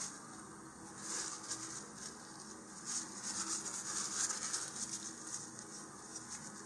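A tissue rustling and rubbing along a model rocket's body tube as excess wet glue is wiped away. The scratchy rubbing comes in two stretches, about a second in and again from about three seconds.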